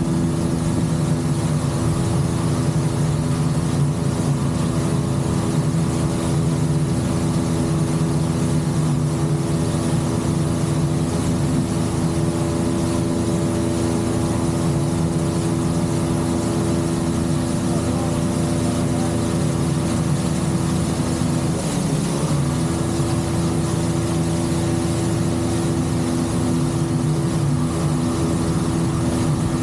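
Boat's outboard motor running steadily at speed, driving the hull through the water, with one brief dip in pitch about three-quarters of the way through.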